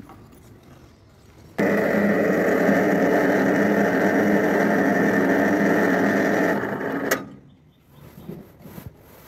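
Electric mini lift hoist motor running steadily while hauling a wheelbarrow load of M-sand up, starting suddenly about one and a half seconds in and stopping about five seconds later. A single sharp clank follows just as it stops.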